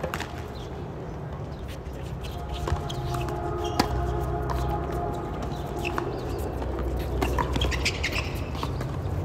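Tennis ball struck by rackets in a doubles rally: a serve, then forehand and volley shots, each a short sharp pop, with the ball's bounces between. A steady low hum runs underneath.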